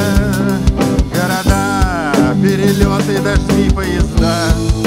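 Live band playing a chanson song: a steady drum-kit beat with guitars and keyboard, and a wavering melody line that glides up and down on top.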